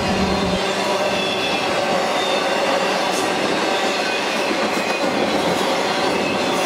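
Intermodal freight cars loaded with highway trailers rolling steadily past: the constant rumble and clatter of steel wheels on the rails, with a faint high wheel squeal.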